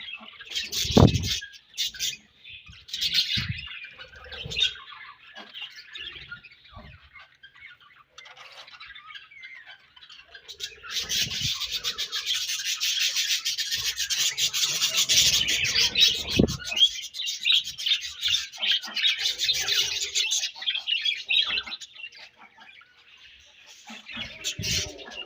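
Budgerigars chirping and warbling, breaking into a dense stretch of fast chattering about ten seconds in that lasts around ten seconds. A couple of short low thumps come through as well.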